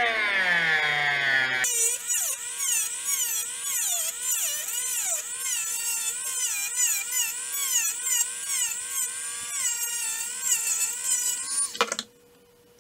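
High-speed rotary tool with a small ball-shaped bit grinding into the end of a small wooden popper lure body: a high motor whine that wavers in pitch as the bit bears on the wood. The pitch rises at the start, and the whine cuts off suddenly about twelve seconds in.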